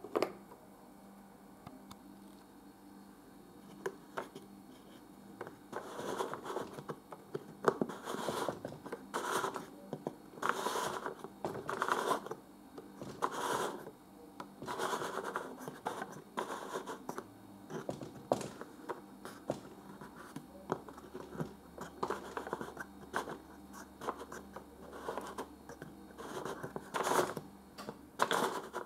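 Cut-out gears and clock hand on a children's busy-board clock face being turned by hand: repeated scraping and rubbing strokes, roughly one a second, with a few sharp clicks. A single knock near the start as a puzzle piece is set in place.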